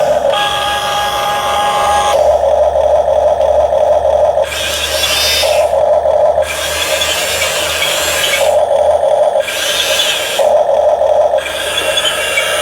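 Small electric motors and gearboxes of a Huina 1550 remote-control excavator whirring as it is operated. The pitch of the whir switches every second or two as different movements are driven.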